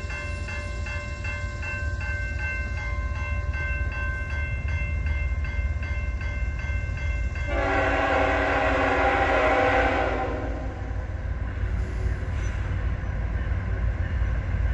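A CSX train rumbles steadily. A bell rings over and over for the first few seconds. A little past halfway comes one locomotive horn blast of about three seconds.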